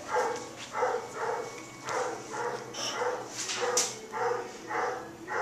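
A dog barking over and over at an even pace, about two barks a second.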